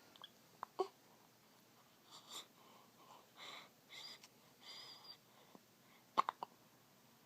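A baby's hiccups: a sharp short catch about a second in and a quick cluster of two or three more near the end. Soft breathy sounds from the baby come in between.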